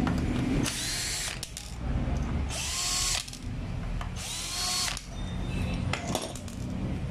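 A Fujima 12-volt cordless drill driving a hex bit runs in three short bursts, each under a second. Its motor whine rises and falls as it backs out the bolts holding a grass cutter's shaft housing to the engine. A few light knocks come near the end.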